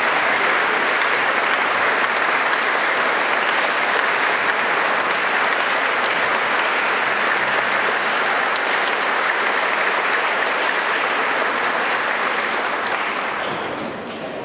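Concert audience applauding with steady, dense clapping that dies away near the end.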